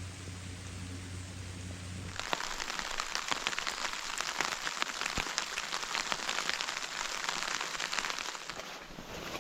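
Rain pattering on forest foliage, a dense crackle of fine drops that starts abruptly about two seconds in. Before that there is a low, steady hum.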